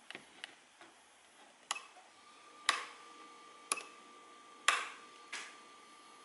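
A series of sharp, separate clicks, about seven spread unevenly, with a faint steady high-pitched electronic tone coming in about two seconds in.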